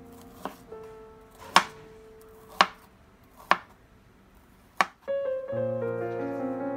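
Chinese cleaver chopping baby corn into small chunks on a cutting board: five sharp chops about a second apart, the first one light. Soft piano music plays underneath and grows louder after the last chop.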